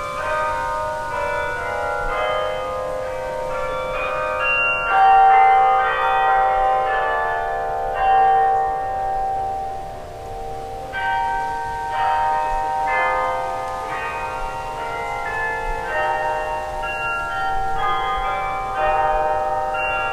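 Carillon bells of Bok Tower playing a slow melody, with many tuned bells struck one after another and their notes ringing on and overlapping.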